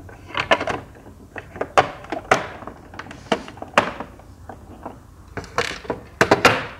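The plastic end cover of an Alfa Style Up 40 sewing machine being pressed and snapped back onto the machine body: irregular sharp plastic clicks and knocks, with handling rubs between.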